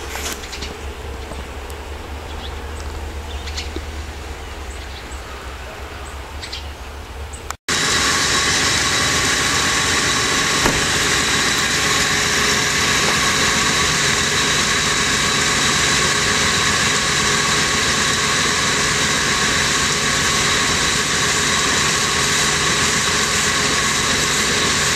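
A quieter low hum with a few faint ticks, then after a cut about eight seconds in, a loud, unchanging engine-like drone at idle.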